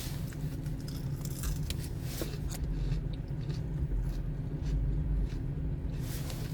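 Close-up eating: small crunchy bites and chewing clicks over a steady low hum.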